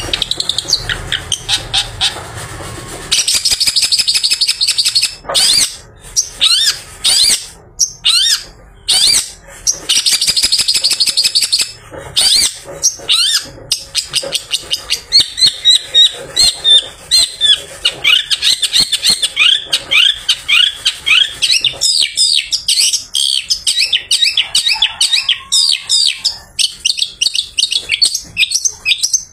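Long-tailed shrike (pented) singing a long, fast run of short, sharp chattering notes and quick rising whistles. A low rumble lies under the first few seconds.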